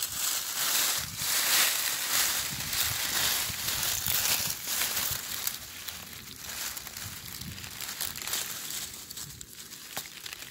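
Dry fallen beech leaves crinkling and rustling as a hand brushes them aside and digs around a mushroom, busiest in the first half and thinning out later.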